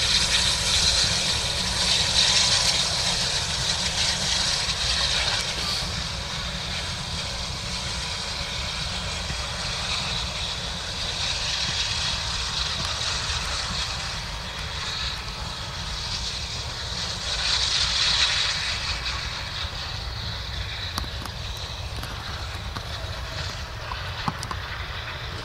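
Steam locomotive working past at the rear of a train and pulling away. Its exhaust and running noise slowly fade, with a few swells of hiss along the way.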